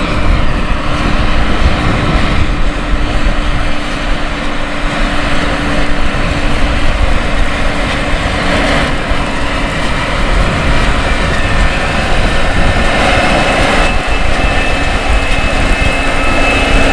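Case IH Magnum 400 tractor's diesel engine working under load as it pulls a 40 ft air drill through the field, a loud steady drone.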